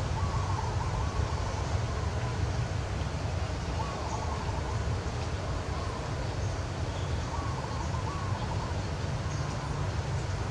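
Outdoor ambience: a steady low rumble, with a faint wavering call heard three times, near the start, about four seconds in and about seven and a half seconds in.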